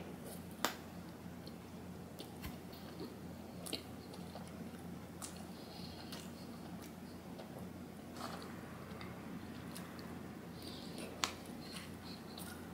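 Close-up chewing and mouth sounds of a person eating a mouthful of sushi, with a few short sharp clicks scattered through, the loudest about half a second in and another near the end, over a faint steady low hum.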